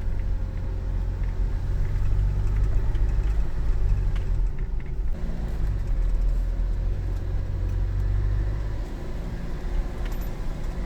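Car engine and road noise heard inside the cabin while driving: a steady low rumble that shifts about five seconds in and eases near the end.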